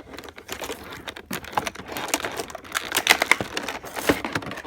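Irregular plastic clicks and clatter from handling a Meowsic toy keyboard, with some rustling.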